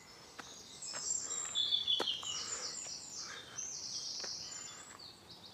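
Small birds singing, a mix of quick high-pitched chirps and trills overlapping throughout, with a few faint clicks.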